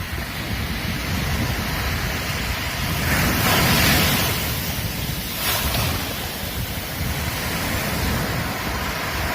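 Ocean surf breaking on a beach, a steady wash of waves with one wave surging loudest about three seconds in.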